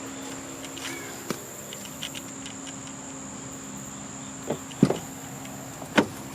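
A few short knocks and clacks of parts being handled, the two loudest about five and six seconds in, over a steady low hum and a steady high-pitched whine.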